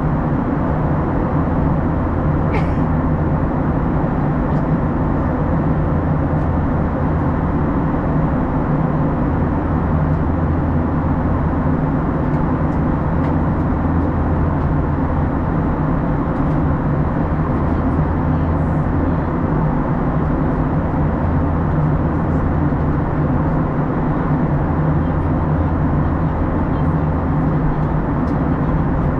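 Steady cabin noise of an Airbus A321 airliner in cruise: the even drone of engines and airflow past the fuselage, with a low hum underneath and one faint click about three seconds in.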